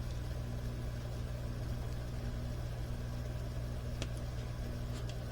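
Steady low electrical hum in a quiet room, with one light click about four seconds in.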